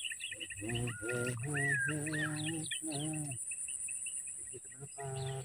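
Small birds chirping repeatedly over a steady, high-pitched insect drone, with a man's voice in short phrases during the first three seconds and again near the end.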